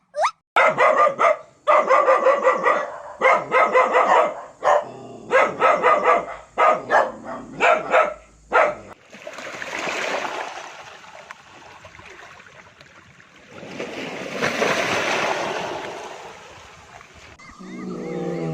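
A dog barking and yipping in rapid bursts for about the first half. Then come two long, rushing, breathy swells of sound.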